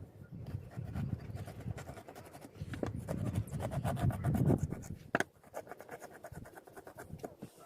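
A sharp knife cutting and scraping along a sea bass's backbone while filleting: a run of small scratching clicks and scrapes.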